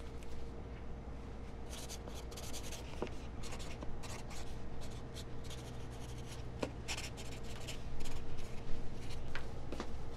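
A pen scratching on paper in many short strokes as a note is written, over a steady low room hum.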